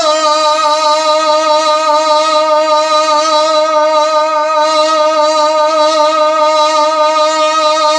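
A man's voice holding one long sung note of a Bengali gazal into a microphone, steady in pitch with a slight waver.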